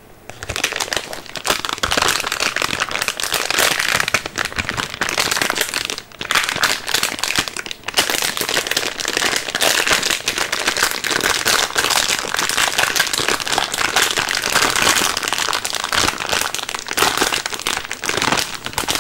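Hands squishing and kneading a soft, slime-like modelling foam close to the microphone: a dense, continuous crackling with sticky pops, dipping briefly twice.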